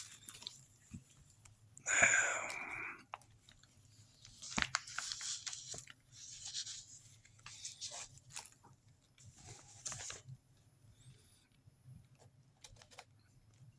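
Irregular crinkling and rustling of plastic ration-pack packaging being handled, with scattered small clicks and knocks; the loudest crinkle comes about two seconds in.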